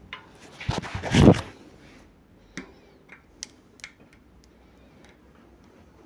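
A brief burst of handling noise about a second in. Then a few sharp, light, irregular clicks: steel bearing balls being picked out of a cup-and-cone rear hub's bearing cup with a magnetic pickup tool, ticking onto its tip.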